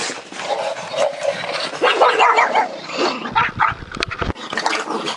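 Pugs barking and whining in excitement, with some low thuds and a sharp click about three to four seconds in.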